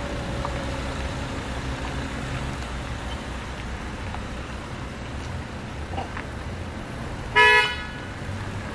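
Car engines running low as cars crawl round a sharp hairpin bend on a gravel road, with one short car horn honk about seven seconds in, the loudest sound.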